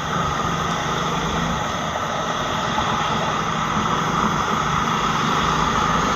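Motorcycle engine running steadily while riding along a road, mixed with wind and road noise.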